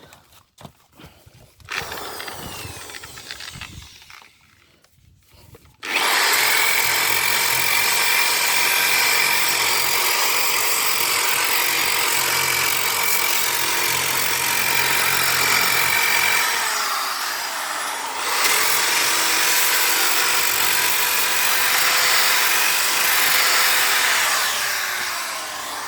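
Power sander working on body filler on a van sill: a loud, steady rasping with a high motor whine, starting about six seconds in after some quieter rubbing. It spins down with a falling whine about two-thirds of the way through, starts up again, and winds down near the end.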